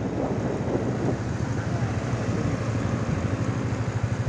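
Motorcycle engine running steadily while riding, with a fast pulsing low hum under road and wind noise on the microphone.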